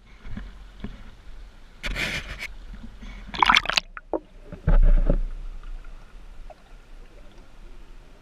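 Pond water splashing and sloshing in bursts: once about two seconds in and again about a second and a half later, followed by a heavier, deeper splash or thump near the five-second mark.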